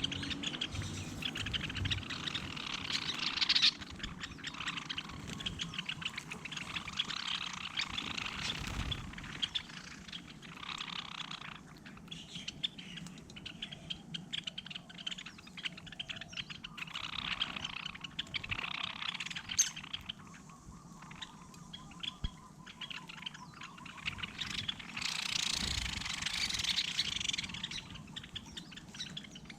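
Small birds chirping and twittering, in busy bursts with short lulls between them.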